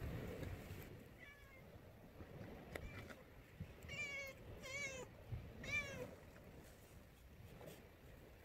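A series of about five short, wavering animal calls, growing louder toward the middle and ending after about six seconds, over a faint low background hum.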